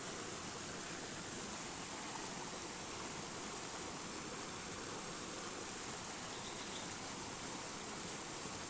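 Steady rush of a rocky mountain stream flowing over boulders, with an even high hiss over it.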